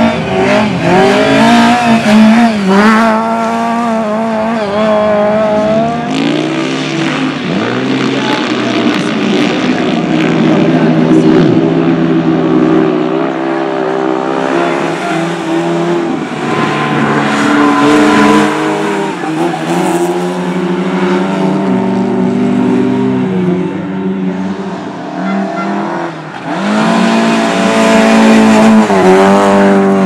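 Several Lada saloon race cars with four-cylinder petrol engines, revved hard and overlapping. Their pitch climbs and drops again and again with throttle and gear changes, with sharp climbs a couple of seconds in, about six seconds in and near the end.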